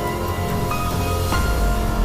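Background music: held synth notes that step to a new pitch about two-thirds of a second in and again near the end, over a steady low drone.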